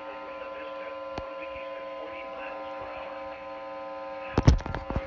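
A steady electrical hum made of several held tones, with a sharp click about a second in and a few loud knocks near the end.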